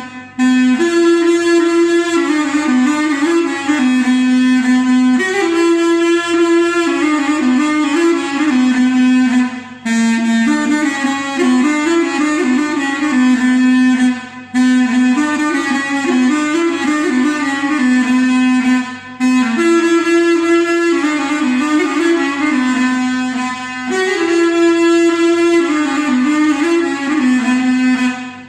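A reed wind instrument playing a Turkish folk melody in long phrases, with short breath breaks every few seconds.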